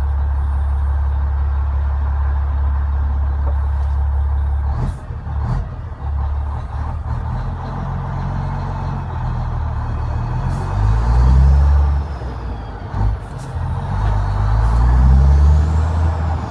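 Renault Magnum's Mack E7 E-Tech diesel engine running steadily, then being worked through gear changes on a manual ZF 16-speed gearbox. The engine note drops and climbs again between shifts, with a rising turbo whistle as it pulls twice near the end, and a few sharp clicks.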